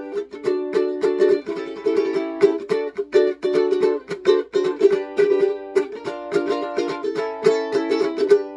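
Solo ukulele strummed in quick, even strokes, changing chords, with no voice over it.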